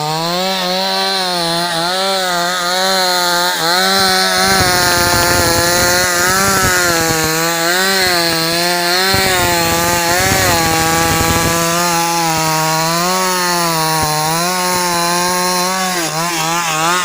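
X-Power 52cc two-stroke chainsaw running at high revs, its pitch wavering as the throttle is worked. From about four and a half seconds to about eleven and a half seconds in, a rough noise is added under the engine: the chain cutting through wood.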